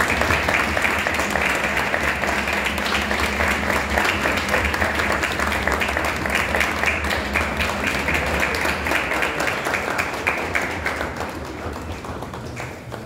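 A crowd applauding steadily, dying away near the end.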